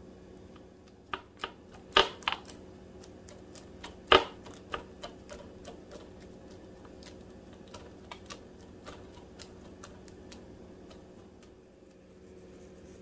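Scattered clicks and light knocks of kitchen utensils and dishes being handled, loudest twice, about two and four seconds in, and thinning out in the second half, over a steady low hum.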